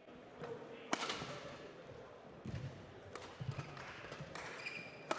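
Badminton rally: a sharp crack of a racket striking the shuttlecock about a second in, players' feet thudding on the court, a brief shoe squeak and another racket hit near the end.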